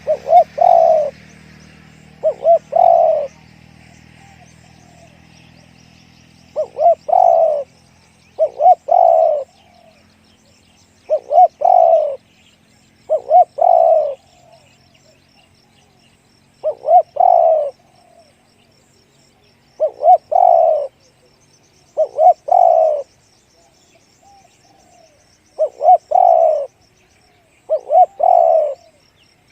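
Spotted dove cooing over and over, a deep call of a short note followed by a longer one, repeated about every two seconds.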